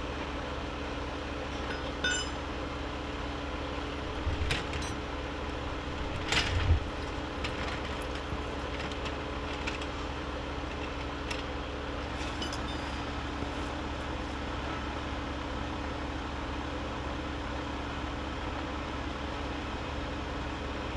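Hand tools clinking and knocking against metal a few times, loudest about six seconds in, as firefighters work in and under a car's engine bay, over a steady low hum.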